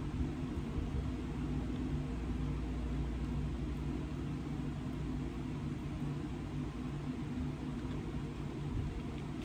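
Steady low mechanical hum of a running household appliance, with several faint steady tones underneath and no change throughout.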